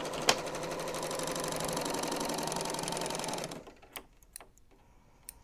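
A three-thread serger (overlocker) stitching a seam at a steady speed, then stopping about three and a half seconds in. A sharp click sounds just after it starts, and a few light ticks of handling follow the stop.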